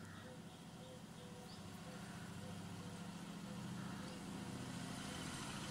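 A low, steady mechanical hum that slowly grows louder, with a faint short tone repeating about twice a second.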